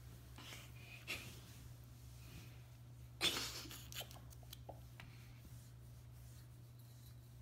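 Faint sounds of a puppy moving about and playing on carpet: soft rustles and light clicks, with one short, louder burst of noise a little past three seconds in.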